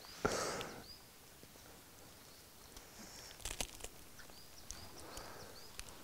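Quiet forest ambience. There is a short rustle of leaf litter just after the start, a few crisp crunches and clicks about three and a half seconds in, and faint short high chirps scattered throughout.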